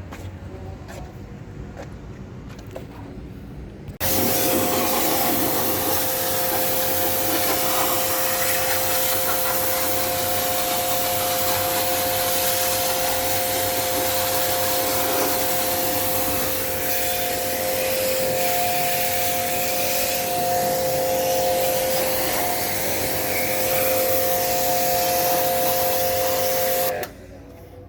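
A motor-driven cleaning machine used in air-conditioner servicing runs with a loud hiss and a steady two-note whine. It switches on about four seconds in and cuts off near the end.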